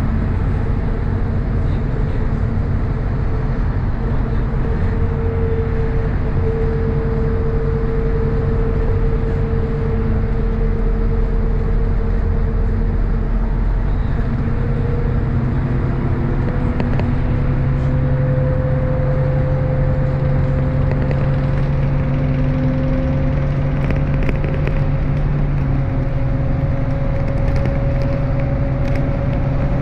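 Inside a MAZ-103 city bus under way: steady engine and drivetrain running with tyre and road noise, and a whine that slowly rises in pitch as the bus gathers speed.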